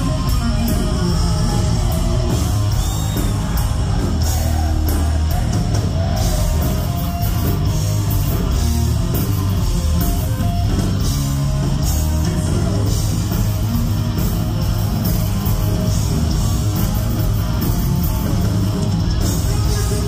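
Live heavy metal band playing loud, with electric guitar over bass and drums with frequent cymbal hits, and singing.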